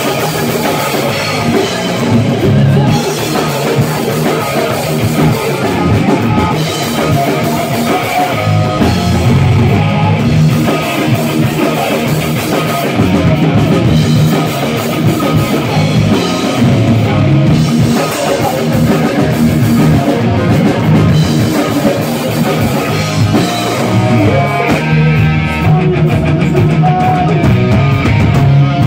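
Live rock band playing loud, with electric guitar and drum kit.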